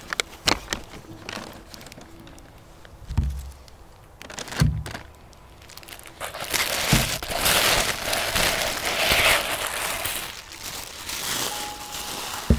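Paper bag and packing paper rustling and crinkling as a mug is pulled out of a paper bag and unwrapped. There are a few soft thumps in the first few seconds, and the crinkling grows loud and continuous about six seconds in.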